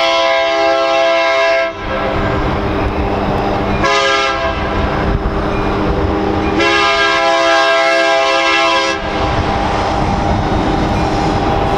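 Air horn of an approaching freight train's lead locomotive, a Union Pacific SD70M, sounding a chord in three blasts: one ending just under two seconds in, a short one about four seconds in, and a long one from about seven to nine seconds in. Underneath runs the low rumble of the approaching diesel locomotives.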